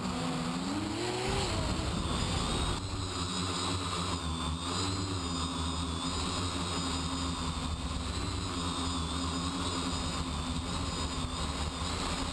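X525 quadcopter's brushless motors and propellers whining steadily, heard close up from on board. The pitch rises about a second in, then holds, wavering slightly as the throttle is worked in flight.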